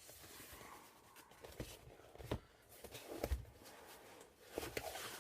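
Rustling of packaging being handled, with several light clicks and knocks as parts are unwrapped and moved about.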